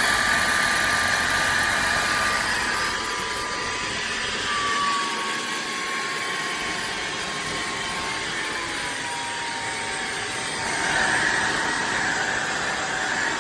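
Shark Stratos cordless stick vacuum running steadily with a high motor whine, its pitch dropping slightly twice and the sound getting a little louder about eleven seconds in. Its Clean Sense dirt sensor has not switched it up to higher suction power.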